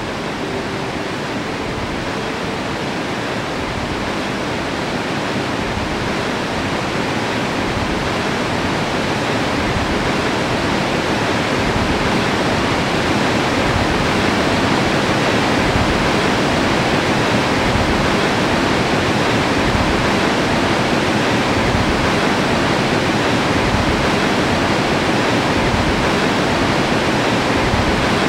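Barnafoss waterfall: a steady rush of falling water, an even, dense noise with no pitch that slowly grows louder.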